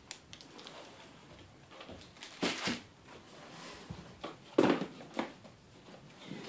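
Handling noise of items being set down and moved: a few short, dull knocks and clunks, two close together about two and a half seconds in and the loudest about four and a half seconds in.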